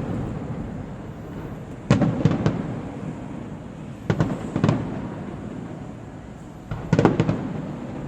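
Aerial fireworks going off in three volleys about two to three seconds apart, each a quick cluster of several sharp bangs, with a low echoing rumble between them.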